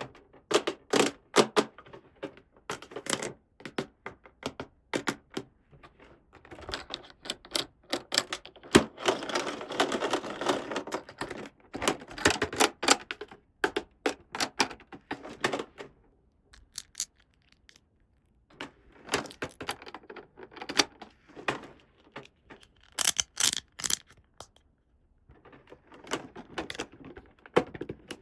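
Small plastic toy pieces clicking and tapping as they are handled and set down, in irregular clusters with short quiet gaps, and a denser stretch of rustling and clatter about ten seconds in.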